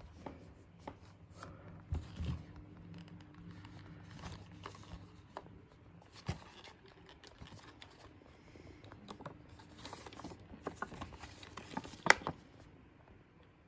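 Handling noise from a boxed fused spur switch in a card box with a plastic window: scattered faint rustles, scrapes and taps of the packaging, with one sharp knock about twelve seconds in.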